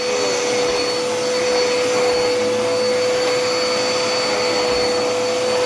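Dirt Devil Endura Reach upright vacuum cleaner running steadily: a constant motor whine over a rush of air.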